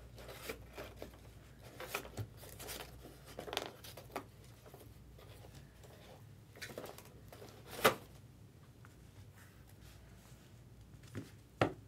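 Trading cards and their packaging being handled: soft, scattered rustling and sliding, with a sharper click about eight seconds in and another near the end.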